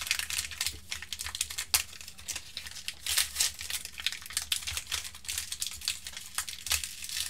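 Crinkling and tearing of a Donruss Soccer trading-card pack's wrapper as it is opened and the cards are pulled out and handled, in irregular sharp crackles.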